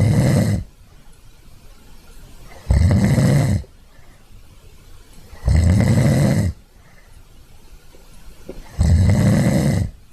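Sleeping pigs snoring in a slow, regular rhythm: a loud, rough snore about every three seconds, each lasting about a second, four in all.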